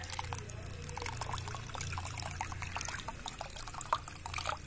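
Water poured over brine shrimp cysts in a plastic mesh strainer, trickling and splashing through into a bowl beneath: rinsing and cooling the decapsulated cysts after the bleach bath. A faint steady low hum runs underneath.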